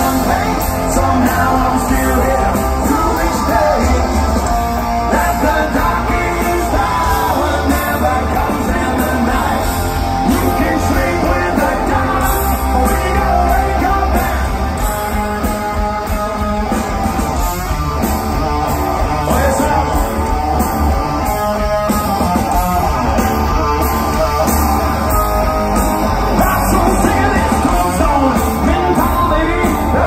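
Live hard rock band playing loud through a large outdoor PA: distorted electric guitars, bass and drums with singing, heard from among the audience.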